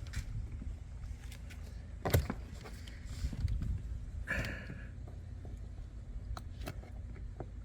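Plastic dashboard trim of a pickup cab being pried and pulled loose by hand: a sharp knock about two seconds in, rustling and handling noise, a brief squeak about four and a half seconds in, and scattered small clicks.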